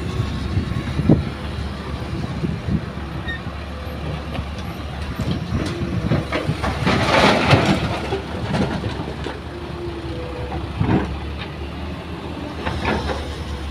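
Diesel engines of a loaded light dump truck and an excavator running steadily, as the truck drives off over rough ground with scattered clanks and rattles. The clanks are thickest about seven to eight seconds in.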